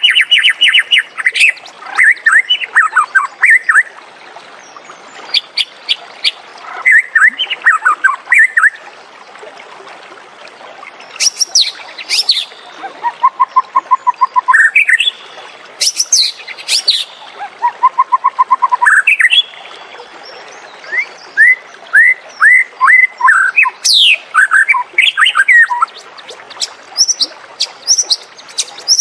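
White-rumped shama singing: a string of varied phrases of quick whistled notes, sliding calls and chatter, some with rapid even trills, broken by short pauses.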